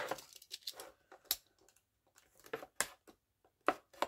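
Hard plastic retail packaging around a craft punch being handled and pried at: scattered clicks, taps and light crinkling, with several sharp clicks in the second half.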